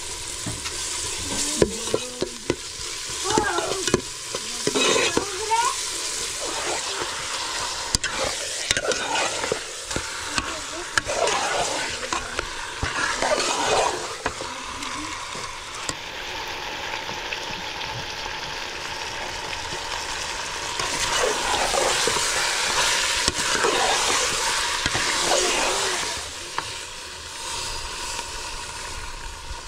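Food frying and sizzling in a pan while it is stirred, with irregular scraping strokes over the steady sizzle.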